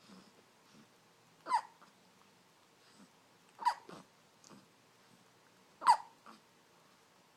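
A premature baby hiccupping: three sharp hiccups about two seconds apart.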